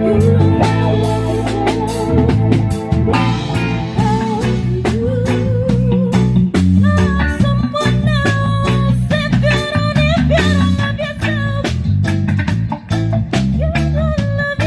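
Background music: an upbeat band track with guitar, drums and a steady beat.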